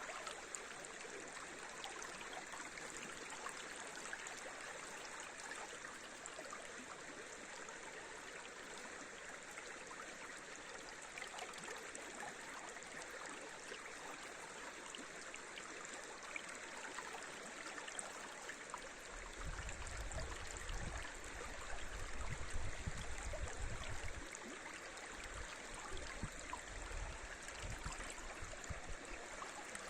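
River water flowing steadily over riffles. About two-thirds of the way through, a low rumble comes and goes for several seconds beneath the water.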